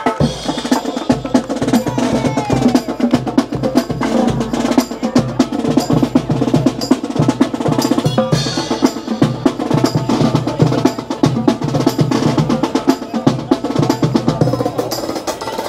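Marching band drum line playing a street cadence: fast snare drum strokes and rolls over steady bass drum beats.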